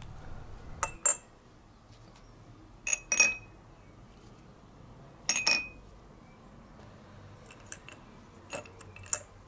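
Small steel nuts and bolts clinking against glass jars as they are handled, in short, sharp clinks with a brief ring at irregular intervals, the loudest about a second, three seconds and five and a half seconds in.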